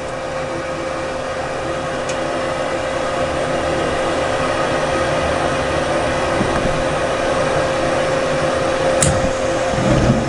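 Lennox Elite gas furnace starting up on a call for heat: the draft inducer fan running with a steady hum while the furnace noise slowly builds, with a couple of faint clicks and a low thump near the end.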